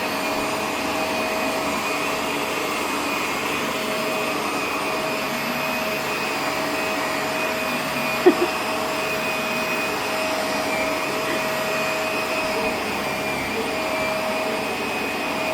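Vacuum cleaner running steadily with a constant whine, with one brief knock about eight seconds in.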